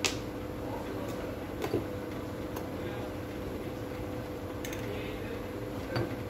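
Small metal drill parts clinking as they are handled on a workbench: a few sharp, irregularly spaced clicks, one right at the start, a double tick about a second and a half in, and others near the end, over a steady low hum.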